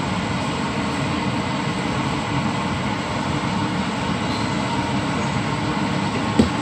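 Steady, loud whirring drone of a running fan-type motor, with a single knock near the end.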